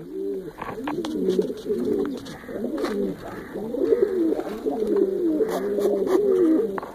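Several domestic pigeons cooing at once, their low rolling coos overlapping without a break.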